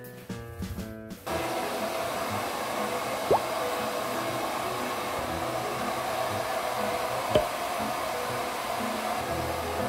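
Handheld hair dryer blowing steadily on a low setting, drying a wet cat's fur; it starts about a second in, after a moment of background music. Two short clicks sound over it partway through.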